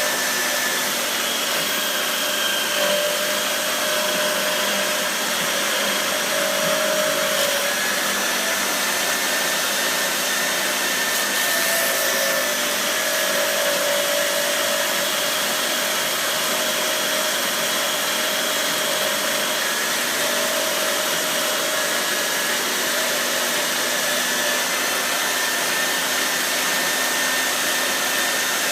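Surface grinder running steadily, grinding the knife handle liners flat, with a faint whine that wavers a little in pitch.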